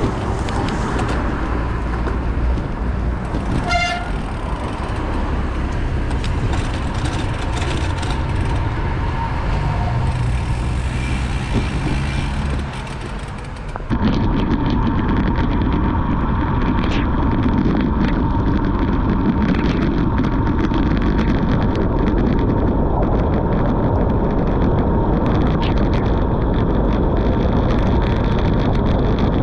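Wind rushing over the microphone and road noise while riding a bicycle, with a short toot about four seconds in. About halfway through, the noise abruptly turns louder and duller.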